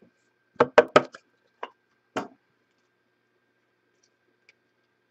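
Handling of a small black trading-card box and its cards on a wooden desk: about six short knocks and taps in the first two and a half seconds as the box is opened and the cards are pulled out, then quiet.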